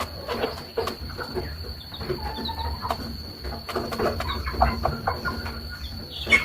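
Chickens calling: a hen's low clucks and chicks' short high peeps, with scattered small clicks and taps. A steady high tone sits underneath.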